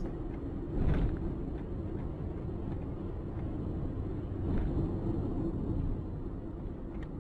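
Street traffic: a steady low rumble of vehicle engines, with a few faint knocks.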